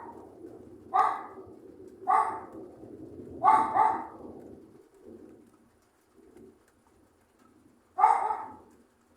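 An animal calling in short calls, five of them, the first four about a second apart and the last after a pause of several seconds. Under the first four is a low rumble that fades out about halfway through.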